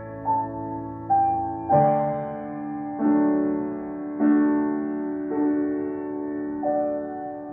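Piano playing a slow instrumental piece: a new note or chord about every second, each left to ring and fade under the next.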